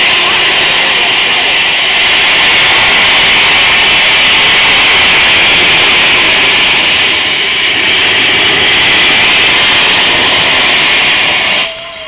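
Steam locomotive Tornado, a Peppercorn A1 Pacific, letting off steam: a loud, steady hiss that cuts off suddenly near the end.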